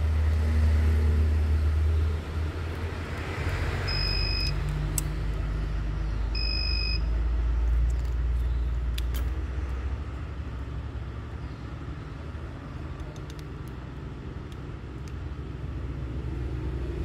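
Two short electronic beeps about two and a half seconds apart, over a continuous low rumble that rises and falls in strength.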